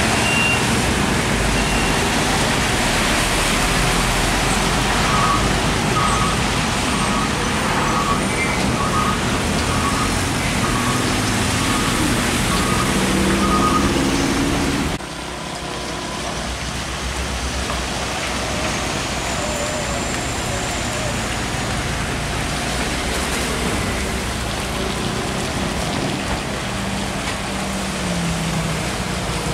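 Heavy trucks and motorcycles passing on a wet road: engines running and tyres hissing on the wet asphalt. A run of short, evenly spaced beeps sounds through the first half, and the traffic noise drops suddenly about halfway in.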